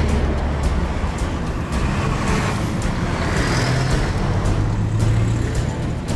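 Road vehicle engines running with traffic noise: a steady low engine hum under a wash of road noise.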